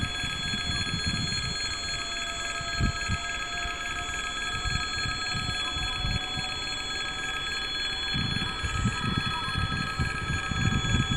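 Railway level-crossing warning bell ringing steadily, the signal that a train is approaching. Wind buffets the microphone in gusts, stronger near the end.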